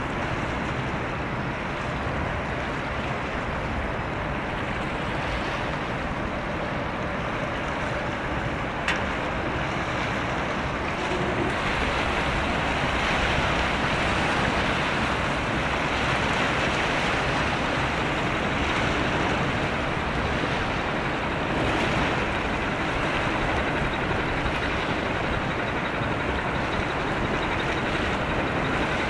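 Steady low drone of a small coastal general cargo ship's engine as it passes, mixed with a steady wash of water and wind.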